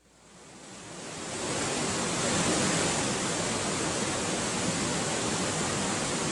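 A steady rushing hiss, like static or falling water, fades in over about the first second and a half and then holds steady, the noise wash that opens a recorded song.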